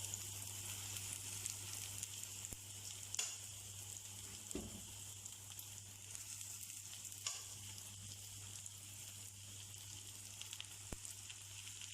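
Fried chicken pieces sizzling in hot oil with sautéed garlic and onion in a pan: a steady, even frying hiss with a few sharp clicks, over a steady low hum.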